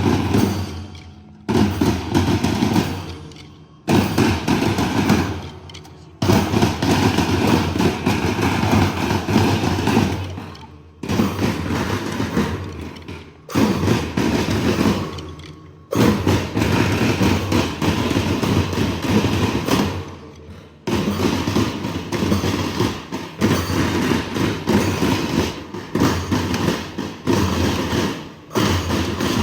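School marching band's drums playing in repeated phrases of rapid strikes, each phrase starting sharply and fading before the next comes in.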